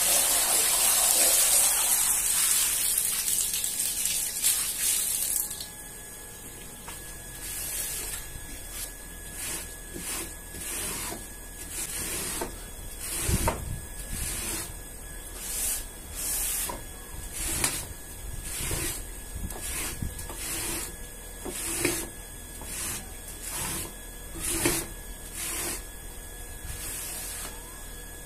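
A stream of water splashing onto a shag rug for about the first five seconds, then a rubber floor squeegee pushed across the soaked rug in repeated strokes, about one a second, squeezing water out of the pile.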